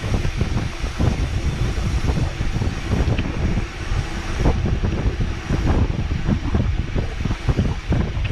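Wind buffeting the microphone during a fast downhill ride, a loud, unsteady rumble with a few short rattles and knocks.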